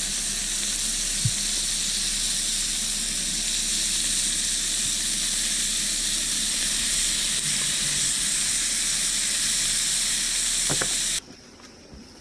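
Bacon sizzling in a frying pan, a steady loud hiss, with a light knock about a second in; it cuts off suddenly near the end.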